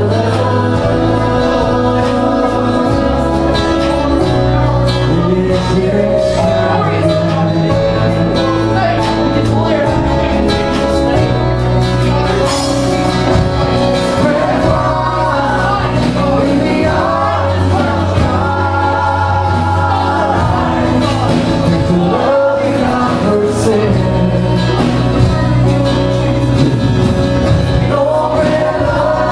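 Live worship band playing a slow worship song with singing, the low bass notes changing every couple of seconds.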